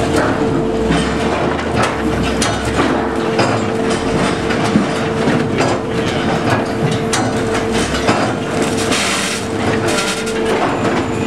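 Sawmill log sorting line running: the conveyor clatters and logs knock against it, over a steady machine hum, with a short hissing surge about nine seconds in.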